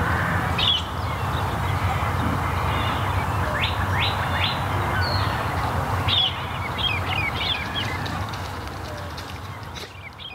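Small birds chirping and twittering in scattered short calls over a steady rushing background noise, all fading out near the end.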